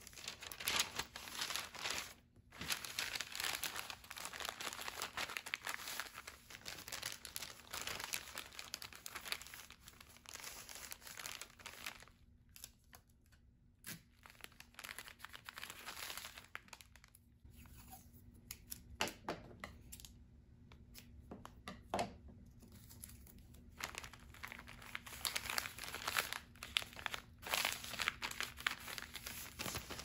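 Brown kraft paper bags being handled, slid and folded on a wooden table: paper rustling and crinkling in bursts. It is busiest in the first dozen seconds and again near the end, with a quieter stretch between that holds a couple of sharp taps.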